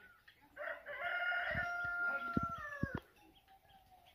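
A rooster crowing once, a single long call of about two and a half seconds that holds its pitch and drops at the end.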